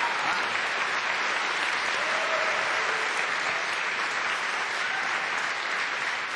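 Audience applauding steadily, a dense clapping that eases off a little near the end.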